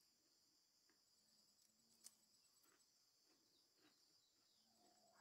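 Near silence except a faint, steady, high-pitched insect chorus, with a single faint click about two seconds in.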